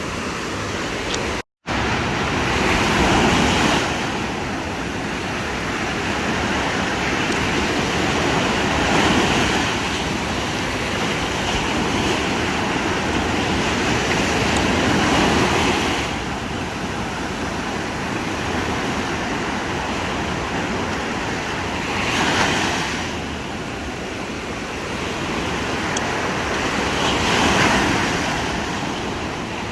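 Sea waves breaking and washing up the beach, swelling and fading every six seconds or so.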